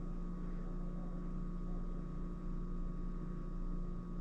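A steady electrical hum over a faint even hiss, with no distinct events.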